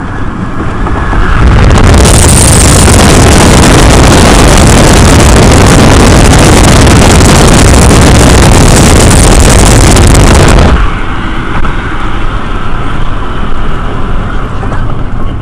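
Wind buffeting the microphone of a camera in a moving car, loud enough to overload. It starts a second or two in and cuts off suddenly after about nine seconds, leaving the car's steadier road noise.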